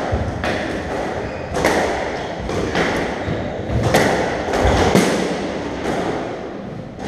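Squash rally: the ball struck by rackets and hitting the court walls and floor, a run of sharp knocks about a second apart with a hollow echo from the enclosed court.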